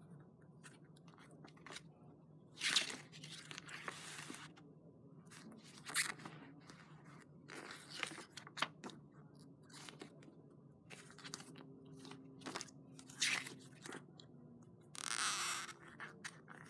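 Paper being handled: the pages of a small songbook and a fingering card rustle and flap as they are opened, turned and pressed flat. The rustles come one at a time, every second or two, with a longer one near the end.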